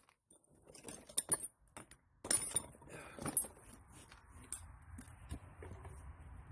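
Irregular light metallic clinks and knocks of tools and parts being handled during a wheel change, with a few sharper knocks scattered through.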